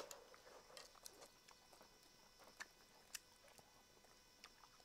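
Near silence, with a few faint, short clicks at irregular intervals.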